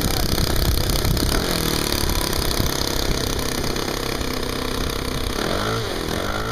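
Laser 2000s 100 four-stroke glow engine running in a P-40 Warhawk RC model, steady and loud, its pitch sliding and then settling near the end.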